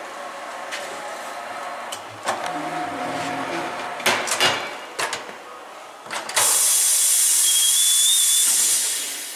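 Tyre changer machine mounting a new tyre onto a steel wheel: the turntable motor runs with several metal clanks. About six seconds in comes a loud, steady hiss of air for about three seconds, fading near the end.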